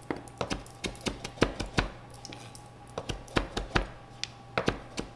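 Chef's knife chopping fresh oregano on a wooden cutting board: quick, irregular knocks of the blade on the board in short runs, with brief pauses between them.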